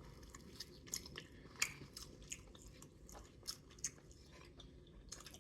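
Close-up chewing of pizza, with soft wet mouth sounds and short sharp crunches of crust now and then.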